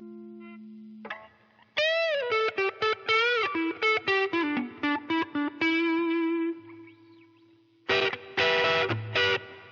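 Telecaster-style electric guitar through a lightly distorted amp. A held note fades, then comes a quick single-note lead lick with string bends ending on a sustained note, and near the end two loud strummed chord stabs.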